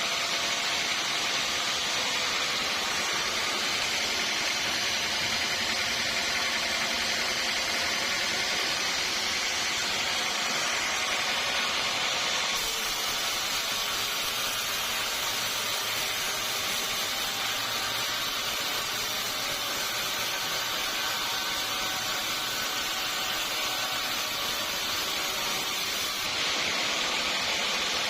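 Sawmill running steadily as its blade cuts through a teak log, a continuous mechanical noise with a slight change in tone about twelve seconds in and again near the end.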